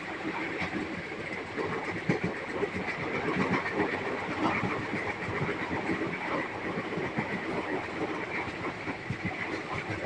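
Moving train heard from an open coach window: a steady running rumble with irregular knocking clatter of the wheels on the track.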